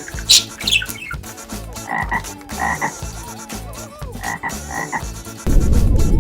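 A frog croaking in short calls, two quick croaks at a time, repeated several times over a backing beat. Near the end a loud low rumble sets in.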